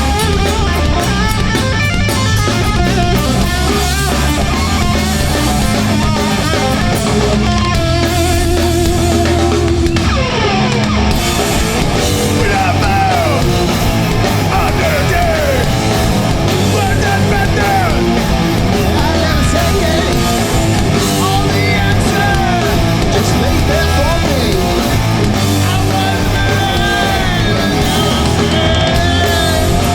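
Hardcore punk band playing live and loud: distorted electric guitars, bass and drum kit.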